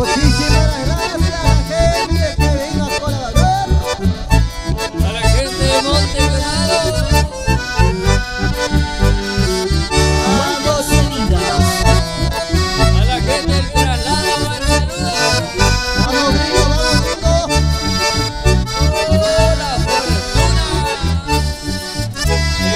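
Live band playing an instrumental passage led by accordion and bandoneon, with acoustic guitar and bass guitar under a steady beat.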